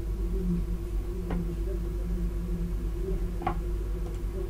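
Steady low electrical hum and background noise on the recording, with two faint clicks about two seconds apart.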